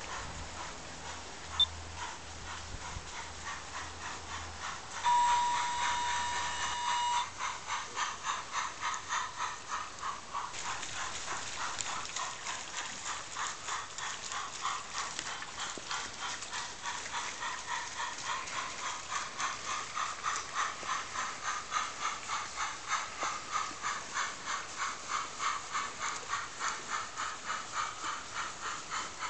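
Garden-railway model steam tank locomotive running: a single steady whistle blast of about two seconds some five seconds in, then an even rhythm of hissing exhaust chuffs, a few beats a second, as it steams along the track. A single sharp click sounds about a second and a half in.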